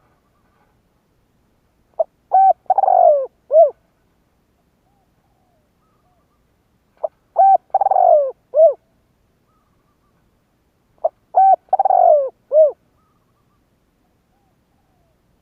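Spotted dove cooing: three calls about four to five seconds apart. Each is a short note, then a pair of notes, a longer falling note and a final note.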